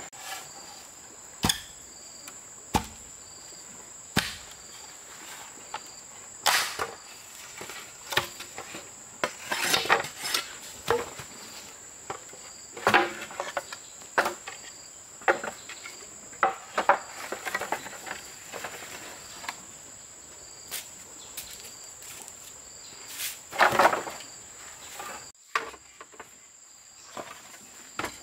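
Insects chirring steadily at a high pitch throughout, overlaid by irregular sharp knocks and clatters, some single and some in quick clusters, the loudest about ten seconds in and near the end.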